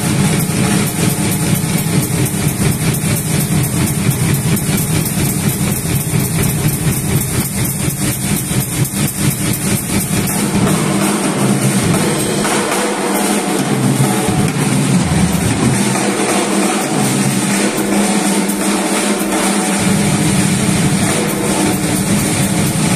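Drum kit solo on a Yamaha kit: fast, dense strokes across drums and cymbals. The deep low drum strokes thin out for several seconds midway, then return.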